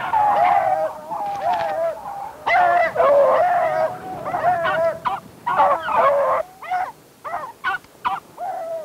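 A pack of beagles baying in full cry on a rabbit's trail, several hounds' drawn-out howling calls overlapping. In the last couple of seconds the calls thin out to shorter, scattered yelps.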